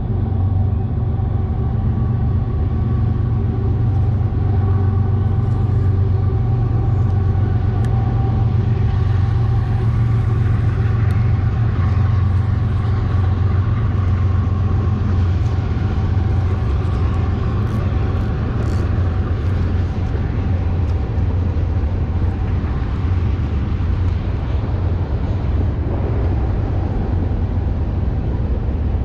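A motor running steadily: a deep rumble with several steady tones held above it, unchanging throughout.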